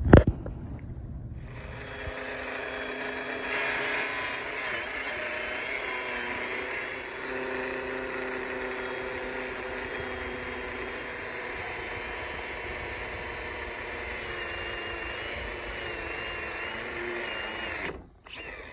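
Angle grinder with a cut-off disc cutting through steel rebar: a steady high whine under load with a small wobble in pitch. It starts about a second in and stops suddenly near the end.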